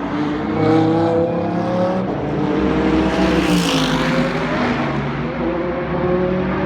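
GT3 race car engines running at speed past the track, rising in pitch under acceleration. About three and a half seconds in, a car passes close, loudest there, and its note then drops away.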